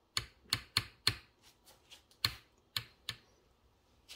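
A series of sharp, uneven clicks and snaps, a few a second, from a cast resin glide-bait tail and its steel screw eye and scale hook under a hand pull on a crane scale, as the load builds in a pull-to-break test.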